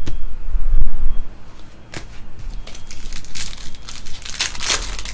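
Foil wrapper of a trading-card pack being torn open and crinkled in the hands, the crinkling densest from about three seconds in. A low rumble fills the first second, with a sharp click or two.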